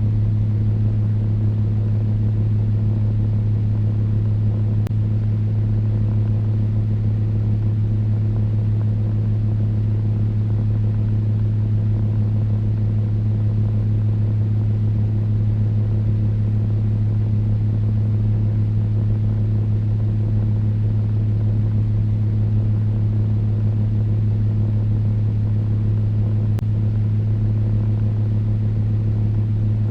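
Electric fan running steadily: a low, even motor hum with a few fainter overtones over a constant rush of air.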